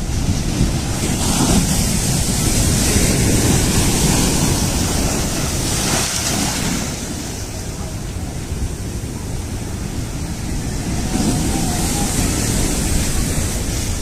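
Strong cyclone wind blowing hard and buffeting the microphone, swelling in gusts: one strong surge in the first few seconds and another late on.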